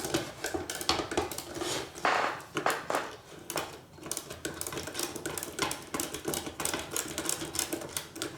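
Irregular metallic clicks and taps of a small right-angle socket wrench working a nut on a metal power-supply chassis.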